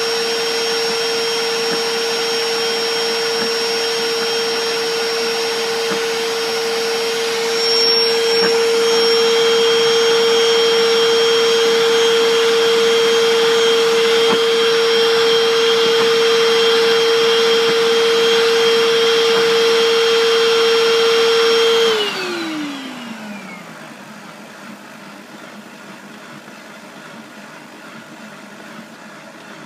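Bissell SpotBot Pet portable carpet spot cleaner running its automatic cleaning cycle: a steady motor whine with a high tone, which gets slightly louder about eight seconds in. About 22 seconds in the motor switches off and its whine falls in pitch as it winds down, leaving only a faint steady hiss.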